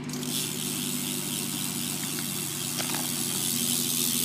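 BMX rear wheel's 9-tooth cassette hub freewheeling as the wheel spins, its pawls ticking in a quick, even run that is not very loud.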